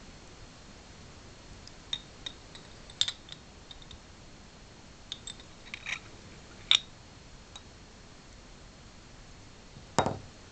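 Several light clicks and taps as a small glass fluorescent tube is handled against a foil-wrapped cup, then one heavier knock near the end.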